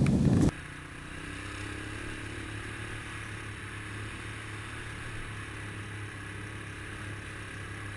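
Honda 250SX all-terrain vehicle's engine running steadily as it rides along a dirt trail, heard from a camera on the machine. About half a second in, a louder opening sound cuts off.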